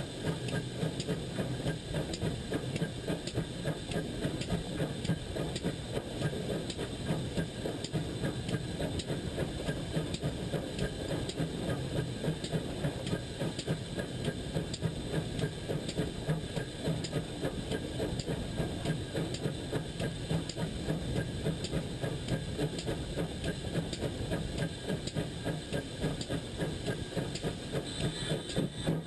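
GWR pannier tank steam locomotive running along the line, heard up close at its front end: a steady hiss and rumble with a quick, even pulse of beats.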